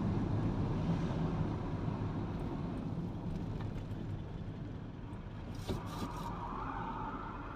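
Car on the move: steady low road and engine noise that gradually grows quieter. A few faint ticks come about three-quarters of the way through, followed by a wavering higher-pitched whine near the end.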